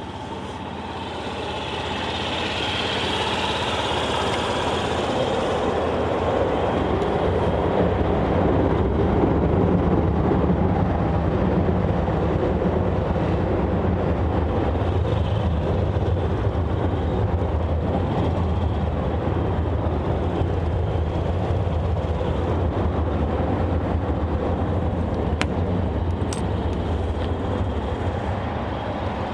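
Honda Gyro Canopy's four-stroke scooter engine running, the sound building over the first several seconds and then holding steady.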